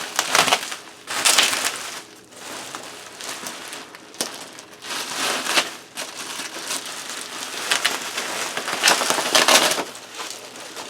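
Packing material around a boxed computer being handled: irregular bouts of crinkling, crunching and rustling, with four louder bursts and softer rustling between.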